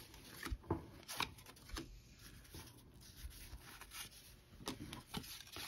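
1986 Topps baseball cards being handled and slid apart by hand: soft, scattered rubs and clicks of card stock.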